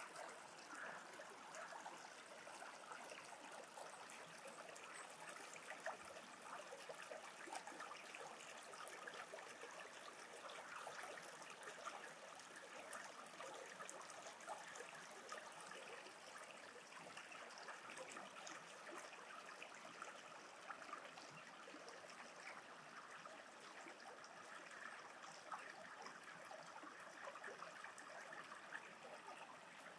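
Faint, steady trickling and babbling of a small stream running over stones.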